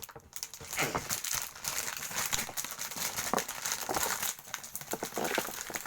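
Plastic packaging crinkling and crackling steadily as kit parts are handled and unwrapped.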